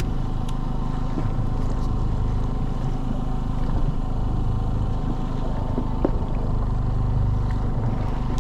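Boat engine running steadily, a constant low hum with a few faint knocks.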